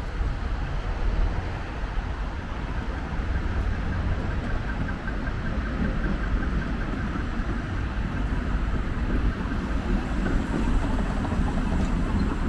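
Street traffic at a busy intersection: cars and trams running past, with a steady low rumble.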